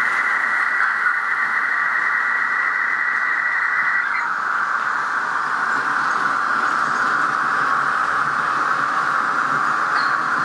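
Märklin E41 model electric locomotive with its mfx sound decoder playing a steady hissing electric-locomotive running sound through its small loudspeaker. A thin high tone on top of it stops about four seconds in, leaving the even hiss.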